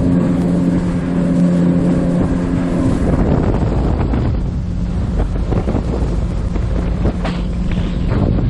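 Motorboat engine running steadily with a droning hum, under heavy wind buffeting the microphone. The engine's tone fades after about three seconds, leaving mostly wind rumble.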